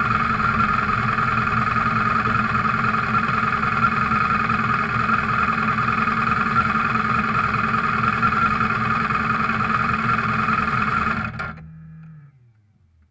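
Motorcycle engine idling steadily, then switched off about eleven seconds in, with a brief low falling tone as it winds down.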